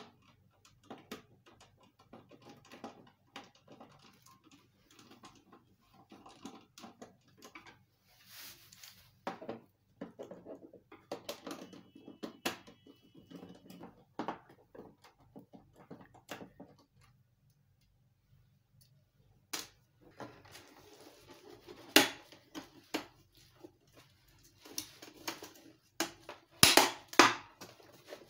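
Small clicks and scrapes of a screwdriver backing screws out of the plastic base of an HP ScanJet G3110 flatbed scanner, with handling knocks on its plastic housing. There are a few louder knocks near the end as the scanner is turned over and set down.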